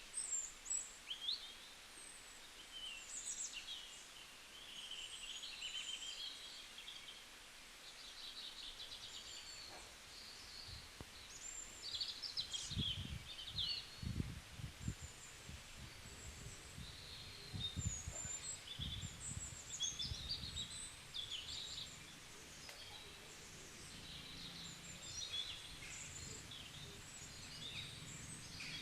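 Several birds singing and chirping in short trills and twittering phrases over a faint steady hiss. A run of low thumps and rumbles comes in from roughly twelve to twenty seconds in.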